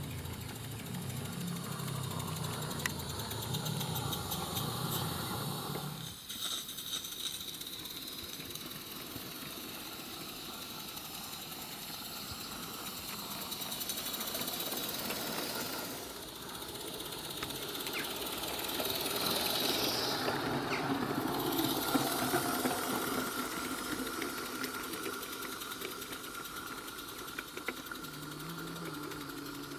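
Small live-steam garden-railway locomotive running, a rapid, even mechanical beat of exhaust and wheels on the track.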